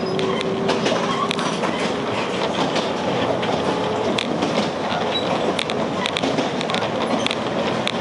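Electric commuter train running on jointed track, heard from inside its driver's cab: a steady rumble of wheels on rail with frequent irregular clicks and rattles as the wheels cross rail joints.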